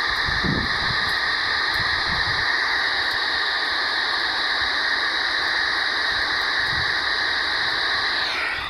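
Steady static hiss from a radio receiver tuned to a weak, distant analog disaster-prevention radio channel, with no chime or voice coming through. Near the end the hiss shifts and drops as a signal comes in.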